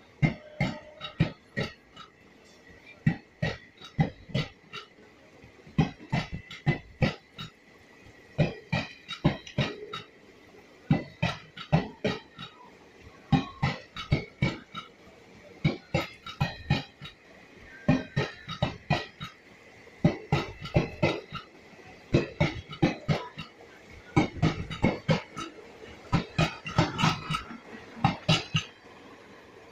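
Train wheels clacking over rail joints: sharp knocks in quick groups of two to four, repeating every second or so, over a faint steady high whine.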